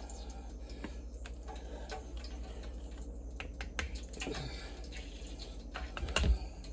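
Light, irregular clicks and taps of a utensil against a bowl while seasoned flour is mixed, over a steady low hum, with a louder thump about six seconds in.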